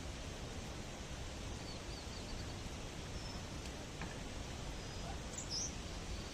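Steady outdoor background noise with a few faint, brief bird chirps, the clearest one near the end.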